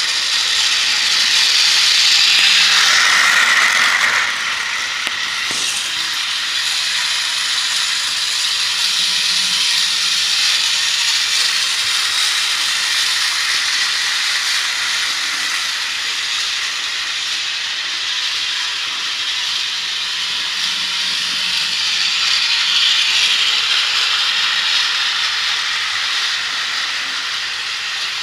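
Centy Toys Indian passenger toy train running around its plastic track: a steady whirring hiss from the toy locomotive and wheels, a little louder for the first four seconds.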